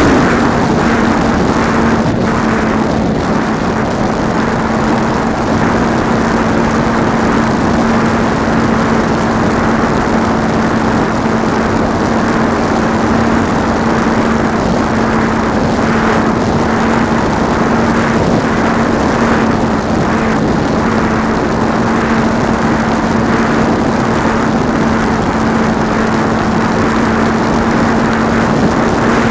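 Electric motor and pusher propeller of an RC flying-wing plane running at steady cruise throttle, a constant drone heard close up from on board with heavy wind rush over the microphone. Right at the start the pitch drops as the throttle is eased back, then holds steady.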